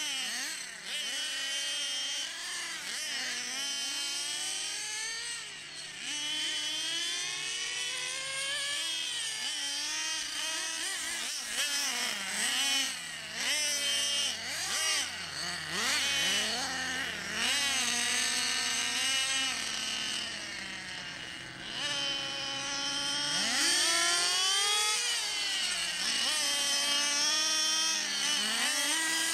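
Several nitro-powered RC buggy engines running at high revs, their shrill whine rising and falling over and over as the throttle opens and closes, with more than one engine heard at once.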